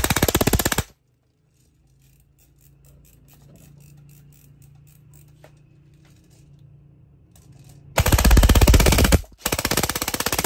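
E&C 702 M16A3 airsoft electric gun (AEG) firing full-auto bursts into a chronograph at about 16 rounds per second. One burst ends just under a second in; after a pause of about seven seconds two more bursts follow, split by a brief break.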